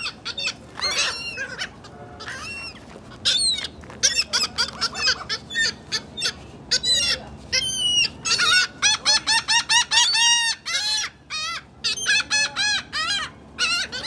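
A flock of laughing gulls calling over one another: many short rising-and-falling calls, some strung together in quick runs of several notes.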